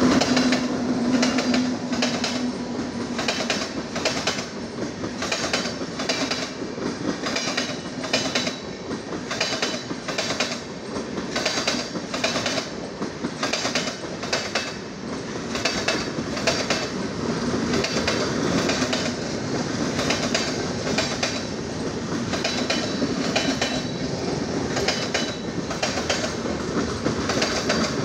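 Indian Railways passenger train of red coaches rolling past behind an electric locomotive, its wheels clicking steadily over the rail joints with a continuous rumble. A low steady hum fades out in the first few seconds.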